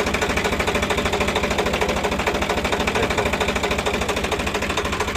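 Swaraj 744 tractor's diesel engine idling close by, a steady, fast, even pulsing.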